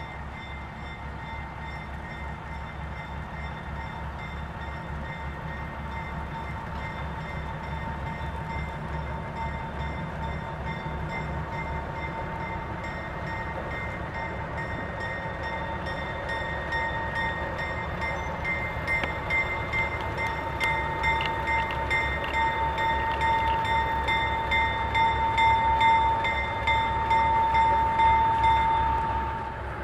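GE 50-ton diesel-electric switcher locomotive running at low speed, with a steady low engine throb and a high steady whine. It grows louder as the locomotive draws close, then falls away sharply near the end.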